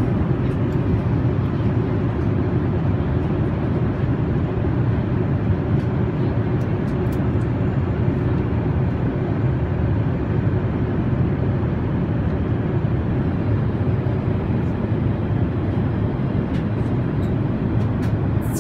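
Steady cabin noise of an Airbus A380 in cruise: the even, low rush of engines and airflow heard inside the passenger cabin.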